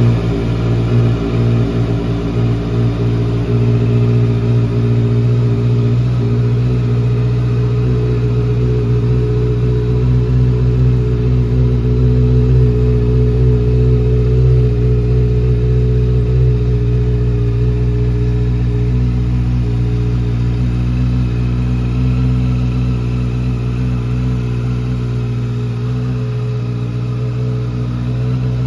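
Honda CBR650R inline-four engine with an SC-Project aftermarket exhaust, idling steadily just after starting.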